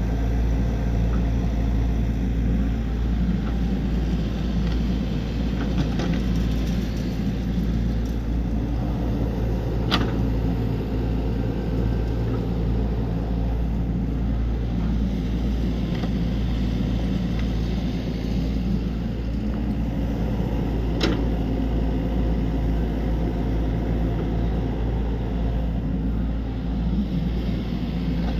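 Excavator's diesel engine running steadily, with two sharp knocks about eleven seconds apart.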